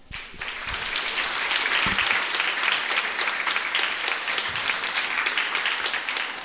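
Audience applauding. The clapping starts abruptly and builds quickly into steady, dense applause.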